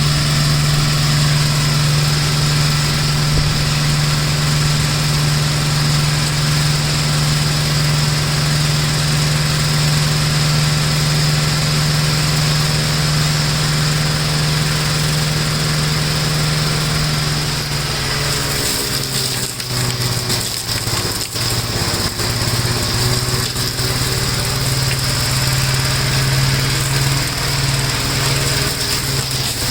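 1969 Gravely L walk-behind tractor's engine running steadily; about two-thirds of the way through its speed drops, as if it is under load, and it runs on at the lower, steady pitch.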